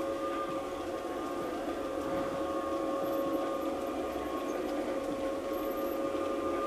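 Model Rhaetian Railway train running on a garden railway: a steady two-tone whine from the locomotive's motor and gears over a rolling rumble from the wheels on the track, getting slightly louder as the train comes closer.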